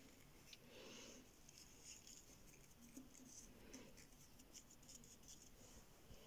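Faint rustling and crinkling of dry leaves on paper as fingers press glued leaves flat, with a few light ticks.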